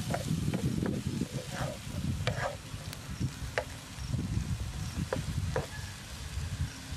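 A spatula stirring and scraping bean sprouts and pork around a frying pan on a portable gas stove, in uneven strokes, with the food sizzling underneath.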